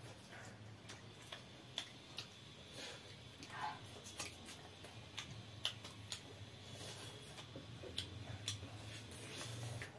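Quiet eating sounds: irregular mouth clicks and lip smacks from people chewing chicken curry and rice eaten by hand, over a faint low hum.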